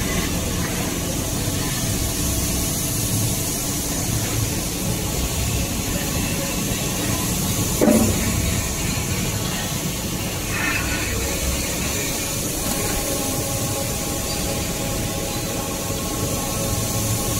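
Tissue paper making machinery running, a steady mechanical noise with hiss and faint steady tones. A single short knock about eight seconds in.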